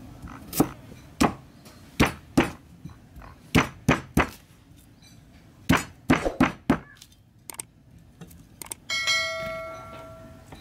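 Heavy cleaver chopping through carrot and then corn cob onto a round wooden chopping block: a dozen or so sharp, irregular knocks over the first seven seconds. About nine seconds in, a bell-like chime from a subscribe-button animation rings and fades.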